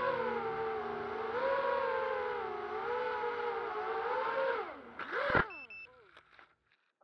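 Racing quadcopter's brushless motors and propellers whining, the pitch rising and falling with the throttle. Near the end the pitch drops and a sharp crash rings out as the quad hits the ground. The motors then wind down with a falling whine, a brief high beep sounds, and it goes quiet.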